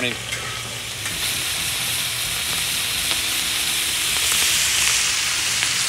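Thick-cut bacon sizzling in a hot steel disc wok, a steady frying hiss that grows a little louder about a second in.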